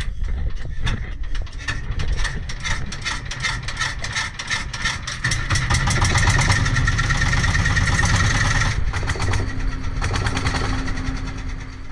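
Small boat's engine running under way, its firing beats quickening and growing louder over the first six seconds, then easing back about nine seconds in.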